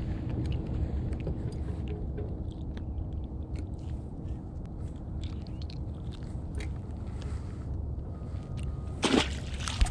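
Small clicks and scrapes of a sheepshead being unhooked and handled, over a steady low rumble. Near the end a splash and a thump as the fish is dropped back into the water.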